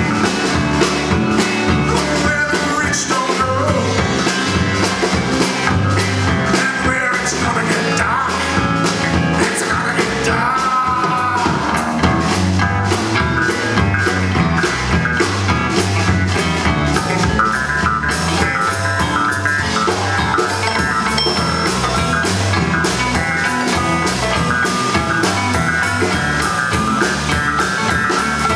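Live indie rock band playing a song: drum kit keeping a steady beat under bass, electric guitar and keyboards.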